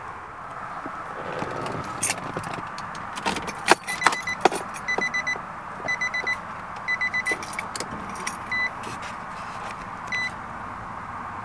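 Keys jangling and clicking in the cabin of a 2005 Infiniti G35 Coupe, with the engine off. From about five seconds in, the car's warning chime beeps in short runs of quick high beeps.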